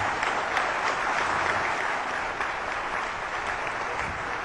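Audience applauding: many hands clapping at once, a steady dense patter of claps.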